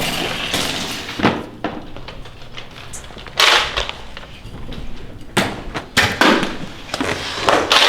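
A series of Nerf foam-dart blasters firing: about six sharp, hissing shots with thuds, spread irregularly a second or so apart.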